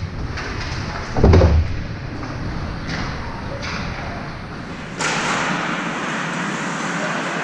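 Ice hockey game in a rink: steady arena noise with one heavy thud about a second in. The background noise grows louder about five seconds in.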